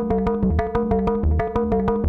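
Eurorack modular synthesizer sequence through a Steve's MS-22 filter: a fast, even run of short plucked notes, about eight a second, over a repeating lower bass line.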